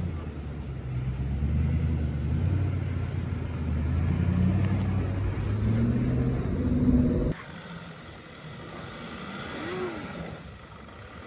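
Nissan Patrol 4WD engine working under load as it crawls through deep sandy ruts, its pitch rising as it revs past close by. About seven seconds in, it cuts sharply to a quieter, more distant 4WD engine.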